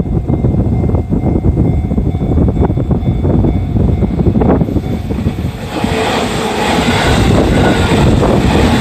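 A train passing over a level crossing: a steady rumble with wheels clicking over the rail joints. About halfway through, a brighter hissing rush joins it and grows louder.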